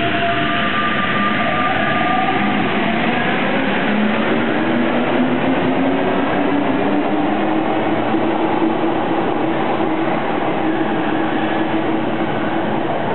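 Paris Métro MP89 rubber-tyred train pulling out of the station and accelerating past, its traction motors whining in a rising pitch over a steady loud rumble of running gear.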